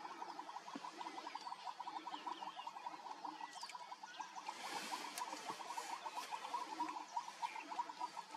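Frogs calling in a steady chorus of rapid, even pulses, with short high chirps above it and a brief hiss about halfway through.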